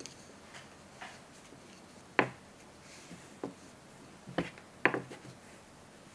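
Wooden knitting needles clicking against each other as stitches are knitted off one needle onto the other: a few scattered, irregular clicks, the sharpest about two seconds in.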